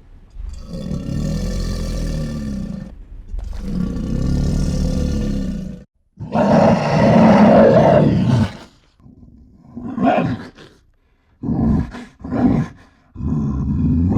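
Lion roaring: three long roars, the third and loudest starting after a short break about six seconds in, then a series of short grunting roars.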